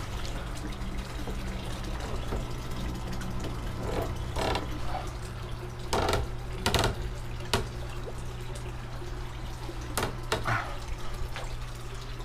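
A newly installed sump pump running, its water pouring weakly out of the discharge with a steady low hum, plus several sharp knocks and clicks in the second half. The flow is weak, which the owner blames on too many elbows in the discharge piping.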